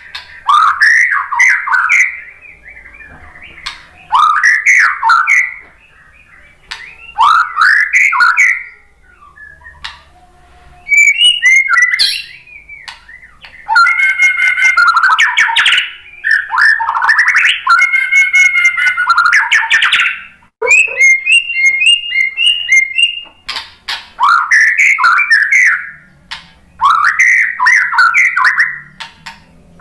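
White-rumped shama singing: loud whistled phrases about a second long, repeated every few seconds. About halfway through it breaks into a denser stretch of song, then a run of quick repeated notes.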